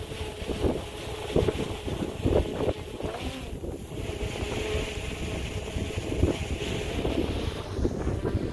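Gusty wind buffeting the microphone: an uneven low rumbling rush, with a steadier hiss above it that drops out briefly a little past the middle.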